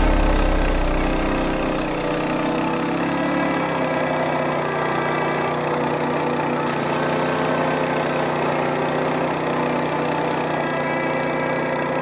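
Engine of a homemade wakeboard winch running steadily at a constant speed as it pulls the rider. A deeper rumble under it fades out over the first few seconds.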